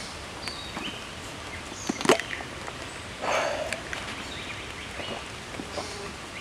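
Birds chirping now and then over a steady outdoor background, with a sharp click about two seconds in and a short rustling burst a little after three seconds.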